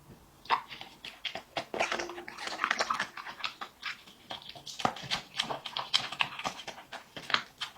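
A dog eating, with quick, irregular chewing, smacking and lapping clicks.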